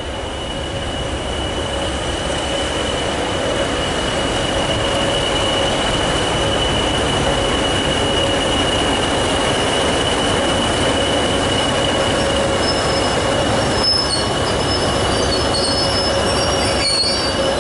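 Class 20 diesel locomotive with its English Electric engine running as it draws a passenger train past close by, getting louder over the first few seconds and then holding steady. A steady high whine runs through it, and faint high squeaks come near the end.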